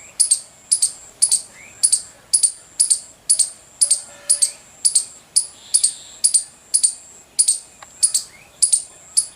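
Baby squirrel chirping: short, sharp, high-pitched chirps repeated steadily at about two a second.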